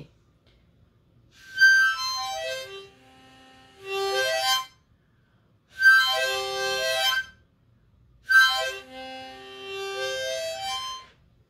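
Harmonica played in three phrases: two runs that step down from high notes to a low one and back up again, with a shorter cluster of several notes sounding together between them.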